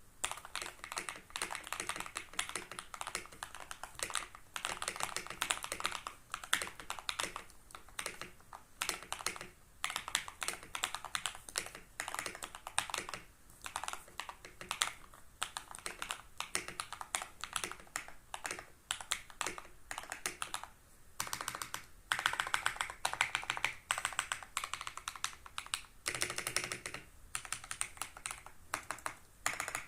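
Continuous fast typing on a Next Time 75 mechanical keyboard with Akko Radiant Red linear switches: a rapid, steady clatter of keystrokes, busier and louder in a couple of short stretches in the second half.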